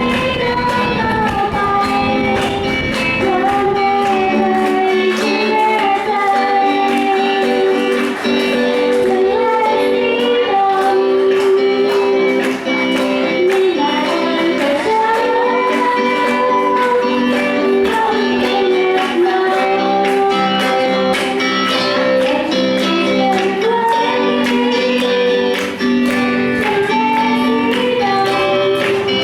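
A young female voice singing a melody over guitar accompaniment.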